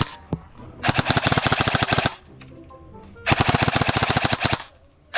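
Airsoft rifle firing on full auto: two long bursts of rapid, even shots, each about a second and a quarter, with a single shot right at the start.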